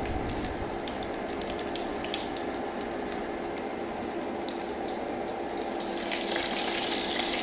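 Battered small-shrimp fritters sizzling and crackling in hot oil in a frying pan, the frying almost done. The sizzle grows louder about six seconds in, over a steady low hum.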